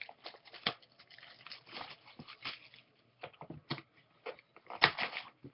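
Crinkling, crackling and tearing of the plastic wrapping on a Topps Chrome trading-card hobby box or pack as it is opened, in uneven bursts with a louder crackle near the end.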